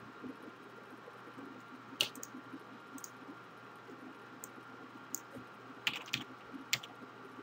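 Scattered sharp clicks of a computer mouse and keyboard keys, the loudest about two seconds in and a quick cluster of key presses near the end, over a faint steady hum.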